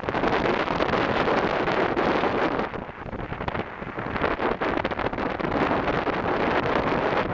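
Wind buffeting the microphone on a speedboat running fast on its Yamaha outboard motors, with the rush of engine and water beneath. The buffeting eases briefly about three seconds in.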